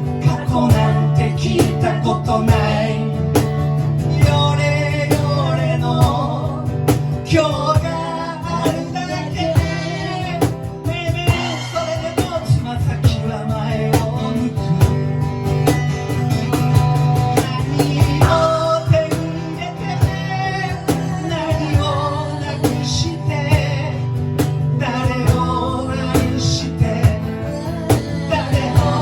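Live rock band playing a song: guitar over a steady low bass line with frequent percussive hits, and singing.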